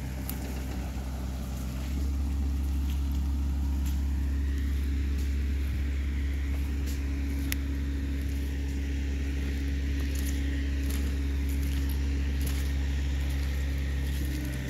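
An engine running steadily with a low hum, growing louder about two seconds in and easing back near the end.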